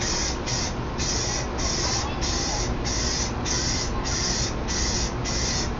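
A paint sprayer laying a coat of red onto a car body in short, regular bursts of hissing spray, just under two a second, over a steady low hum.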